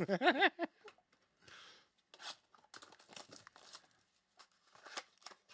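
Trading card packs being torn open and the cards handled: crinkly rustling, tearing and scattered sharp clicks, after a brief vocal sound at the start.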